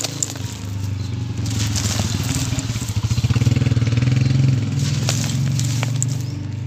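Dry sand-cement clumps crumbling between fingers, with fine grit pouring down in rushes about a second and a half in and again around five seconds, plus a few sharp crackles. Beneath it a steady low engine hum runs throughout, swelling in the middle.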